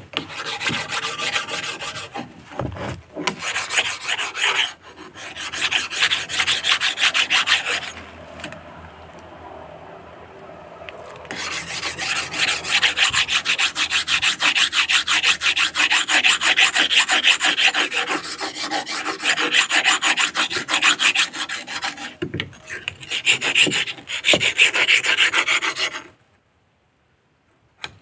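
A machete blade being sharpened by hand: fast, even back-and-forth strokes of steel scraping against the sharpening tool. The strokes ease off about a third of the way in, resume, and stop shortly before the end.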